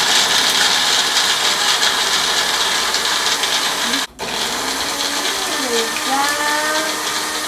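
Single-serve bullet-style blender grinding roasted, salted pistachios into a powder. It runs in two long pulses with a brief stop about four seconds in.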